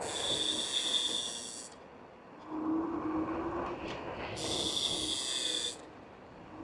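Front disc brake of a MaxFun 10 Pro electric scooter squealing twice, each a high steady squeal of about a second and a half, as the brake is applied while riding to bed in its new pads. It is the front brake that squeaks. A lower hum and road noise run between the squeals.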